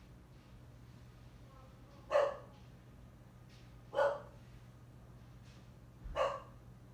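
A dog barking three times, about two seconds apart, each bark short and loud.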